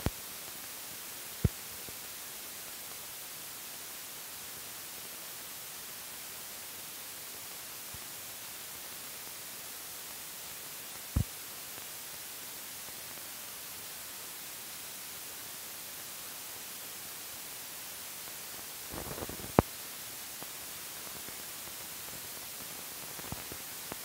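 Steady hiss of a blank old film soundtrack, broken by a few sharp pops: one about a second and a half in, one near the middle, and the loudest near the end, just after a brief crackle.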